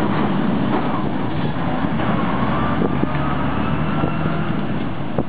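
Renault AE430 truck's diesel engine pulling away with a semi-trailer rolling close past: a steady low engine note with a faint whine above it.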